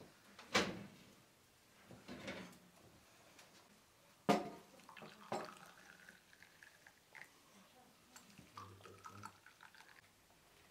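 Aluminium teapots clinking sharply twice, then tea poured from a Turkish double teapot into small glass tea glasses, the pitch of the pour rising as a glass fills.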